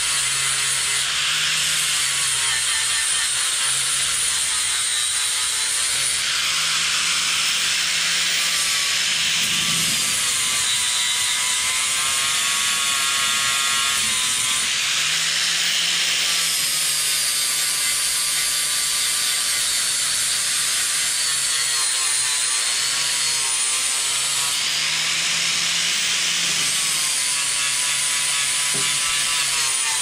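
Electric angle grinder running continuously against a steel dump truck body, grinding paint off the metal; its whine sags in pitch each time it is pressed in and recovers as the pressure eases.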